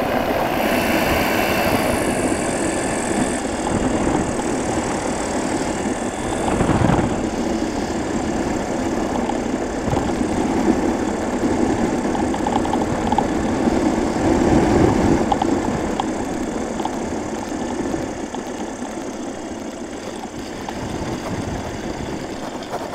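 FlyLight PeaBee microlight trike's engine and pusher propeller running, mixed with air rushing past the open cockpit, on final approach and landing. The sound gradually quietens over the last several seconds as the trike rolls out on the grass.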